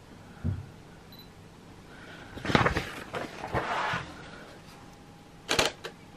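Handling noise from a DSLR on a tripod: a soft thump, then a couple of seconds of rustling and scraping. Near the end the Canon 90D's shutter fires as a sharp double click.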